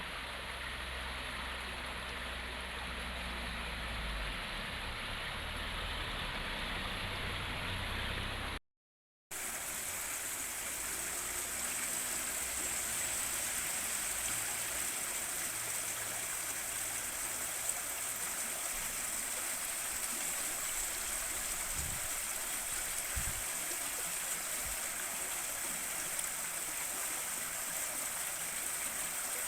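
River water flowing steadily over stones. About nine seconds in it cuts to a moment of silence, then resumes brighter and hissier.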